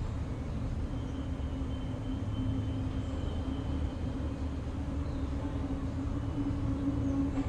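Steady low mechanical rumble, like a vehicle engine running at a distance, with a droning hum that grows louder towards the end.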